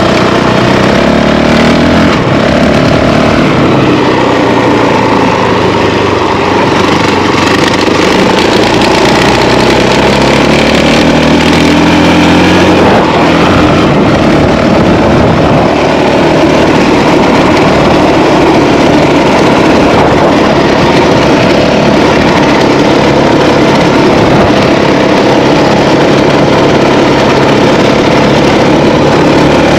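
Honda CRF450L's single-cylinder four-stroke engine under way on a dirt track, its pitch rising and falling as the rider works the throttle and shifts through the gears, over a steady rush of wind and tyre noise.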